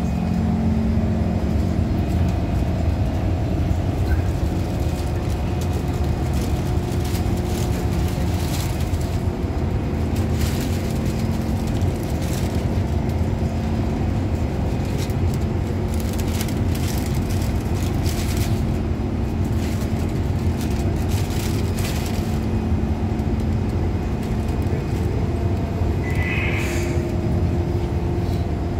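Steady hum and rumble inside a Kawasaki C151 MRT train car standing at a station with its doors open. Scattered clicks and knocks come mostly in the middle, and a brief higher-pitched sound comes near the end.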